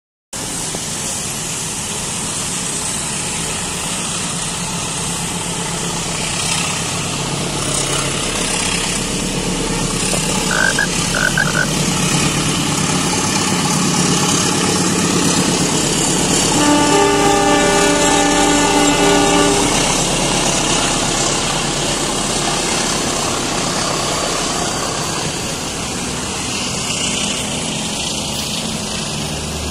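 Wet-road traffic noise of motorcycles and cars, with a diesel-hauled passenger train passing on the track behind. The rumble swells about midway as the train goes by, and a horn sounds for nearly three seconds in the middle, with three short high beeps a little before it.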